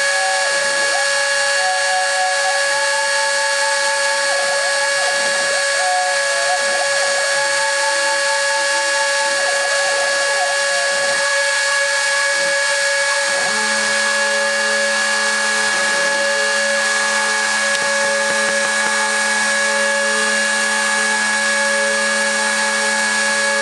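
Emco Unimat 3 CNC milling machine running: a steady motor whine with several fixed tones, over which the axis drive motors step between pitches as the axes move. About thirteen seconds in, a new lower steady hum starts.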